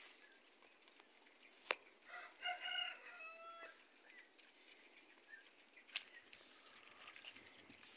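A rooster crowing once, a little over a second long, its last note trailing off lower. A sharp click comes just before the crow and another a few seconds later.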